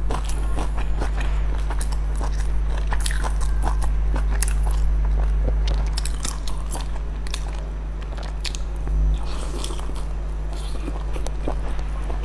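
Close-up eating sounds: a person biting and chewing soft steamed buns dipped in sauce, with many short wet mouth clicks and smacks. A steady low hum runs underneath.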